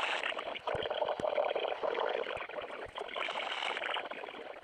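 Radio static: a fluctuating hiss from a radio receiver between broadcasts, with a few faint clicks.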